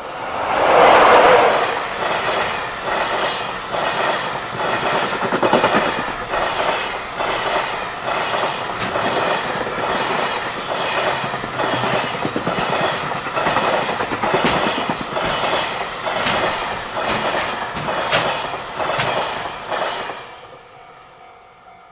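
Freight train passing at speed. The locomotive goes by loudest about a second in, then the container wagons' wheels clack over the rail joints in a steady rhythm until the last wagon passes, about twenty seconds in.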